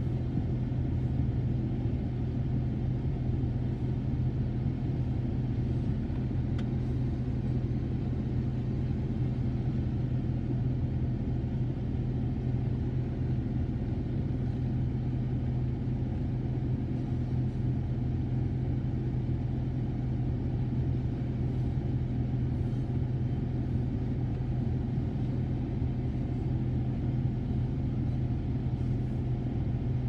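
Empty coal hopper cars of a freight train rolling past with a steady rumble, under a constant low hum.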